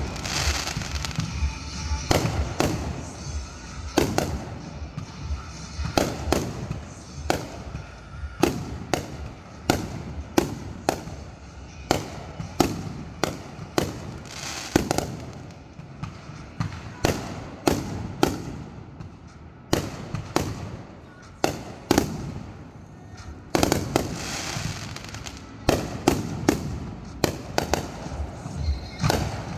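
Fireworks going off in a long run of sharp bangs and pops, often one or two a second and sometimes in quick clusters, with a hissing crackle between them.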